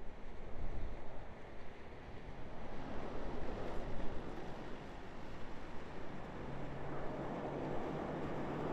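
Airbus A350-900 on final approach, its Rolls-Royce Trent XWB turbofans making a rushing jet noise that grows steadily louder as the airliner nears, with a low steady hum joining in past the middle. Wind rumbles on the microphone at the start.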